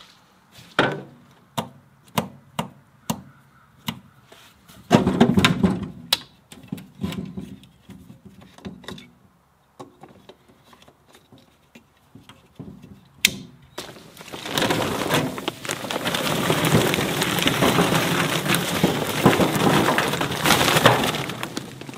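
A run of light, regular clicks and knocks while a Husqvarna chainsaw is handled, then, past the middle, charcoal briquettes poured from a paper bag onto a grill, a loud rattling clatter for several seconds.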